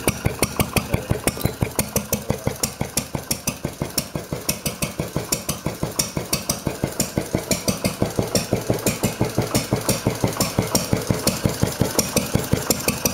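Wolseley WD8 single-cylinder stationary engine running steadily, with even firing beats about five or six a second. It isn't firing just right, which the owner puts down to the timing being slightly off.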